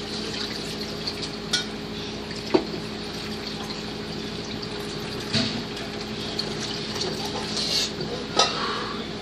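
A metal cooking pot and utensils being handled: a few sharp clinks and knocks, with some scraping near the end, over a steady low hum.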